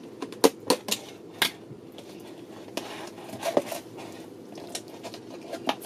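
Plastic yogurt tub and its snap-on lid being handled and opened: a scattered series of sharp plastic clicks and knocks, with softer rustling between them as a hand works in the tub.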